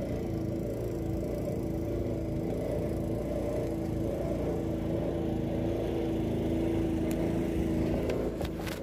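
A small engine running steadily with a droning hum, with a few light clicks near the end.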